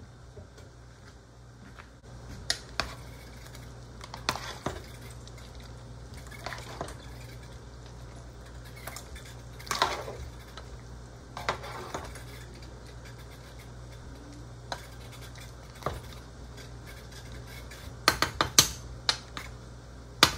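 A ladle stirring soup in a steel stockpot, knocking and scraping against the pot at irregular moments, with a quick run of clinks near the end, over a low steady hum.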